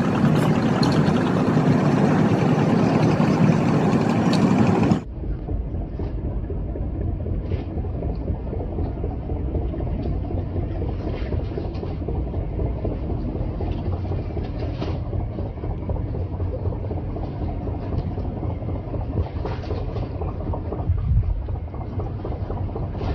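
Boat engine running steadily at speed, with water and wind noise. About five seconds in it changes abruptly to a duller, lower rumble with wind buffeting the microphone.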